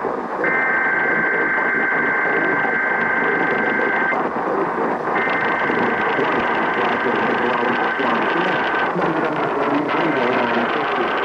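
Emergency Alert System SAME header: the screeching two-pitch digital data burst that opens a Required Weekly Test. It plays three times, each burst a few seconds long with about a second's gap, over heavy radio static.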